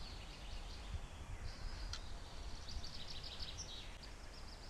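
Small birds chirping in quick, repeated short notes over a steady low rumble, with one brief click about two seconds in.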